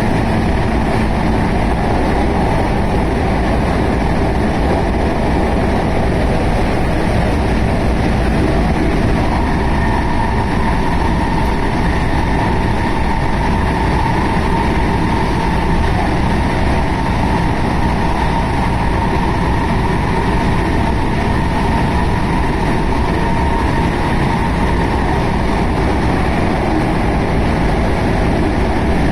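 JR West 221 series electric train running at speed, heard from inside the leading car: a continuous rumble of wheels on rail with its DC series-wound traction motors. A steady whine rises out of the running noise about nine seconds in and fades again about two-thirds of the way through.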